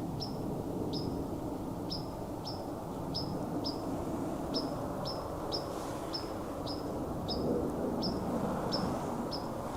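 A bird's short, high chirps repeated unevenly about twice a second, over a steady low rushing noise.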